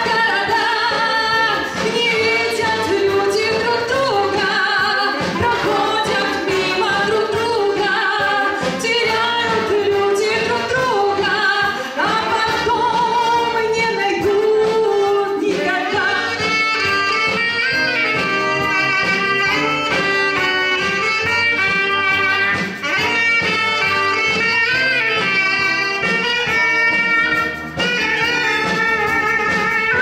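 Military brass band playing a song, a woman singing over it in the first half; from about halfway a saxophone solo takes the lead over the band.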